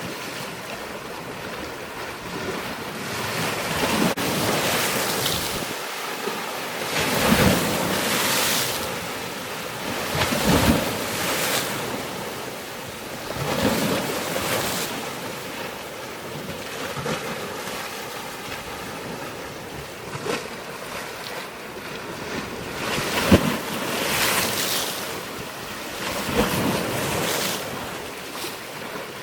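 Water washing in repeated surges every few seconds, over a steady rush of wind on the microphone.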